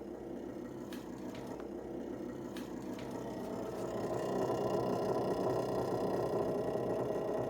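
Samsung refrigerator defrost fan running with an abnormal noise: a steady whirring hum with a faint rattle, growing louder about four seconds in.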